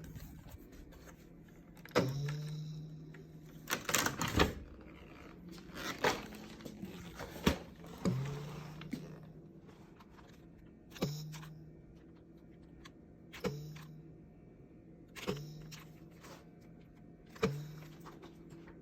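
Irregular sharp clicks and knocks of parts being handled on a Dyson vacuum, about ten in all, most followed by a brief low ring that dies away.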